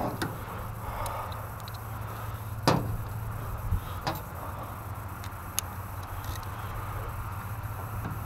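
A few sharp clicks and knocks, one to two seconds apart, over a steady low hum.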